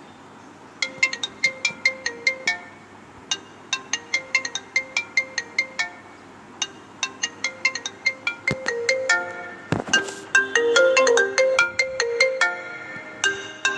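Phone ringtone: a quick melody of short, bright notes repeating in phrases, starting about a second in, with a brief gap near three seconds and growing denser and fuller over the last few seconds.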